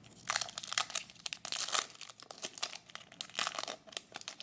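Foil wrapper of a Yu-Gi-Oh booster pack crinkling and tearing as it is handled and ripped open, in two clusters of sharp crackles.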